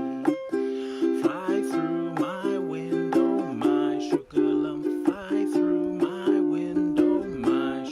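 Tenor ukulele with a baritone body strummed in a steady rhythm, moving between C and G7 chords.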